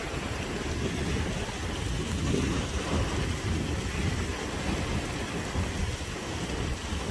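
Hillside stream rushing down over rocks in a steady roar of water, with a flickering low rumble underneath.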